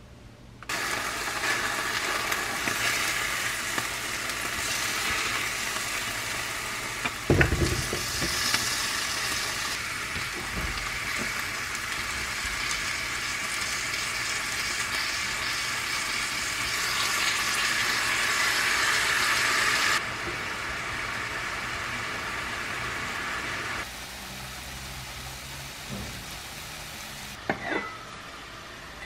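Flounder fillets sizzling as they pan-fry, a steady hiss that starts suddenly and carries on, with one thump about seven seconds in. The sizzle drops away later, and a few light clicks come near the end.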